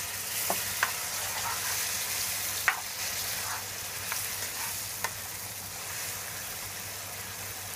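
Chicken and tomato stew sizzling steadily in a hot skillet, with a little water just added, while a spatula stirs it. A few sharp knocks of the spatula against the pan come through the sizzle.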